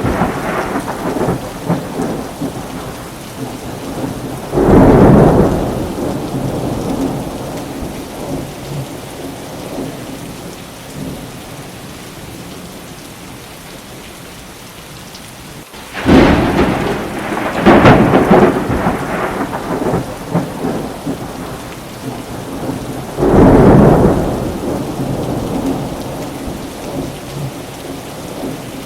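Steady heavy rain with thunder crashing three times: about five seconds in, then a longer roll from about sixteen seconds that swells again two seconds later, and once more near the end, each fading over a few seconds.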